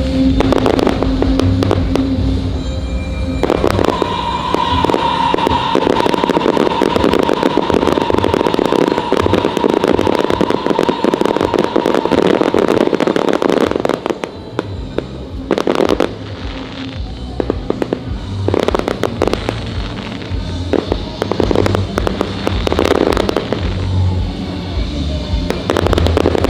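Fireworks show: a dense, continuous run of crackling and bursting fireworks that thins into separate volleys about halfway through, with music playing underneath.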